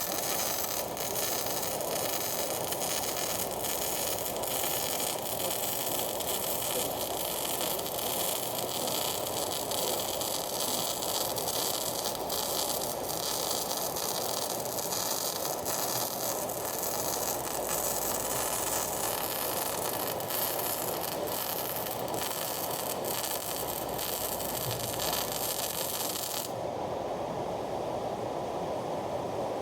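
Electric arc welding: the arc's steady crackling hiss runs until it stops about three seconds before the end, leaving a steadier lower noise.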